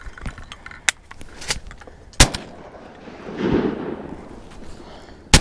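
Two shotgun blasts about three seconds apart: follow-up shots to finish off a wounded blue-winged teal on the water.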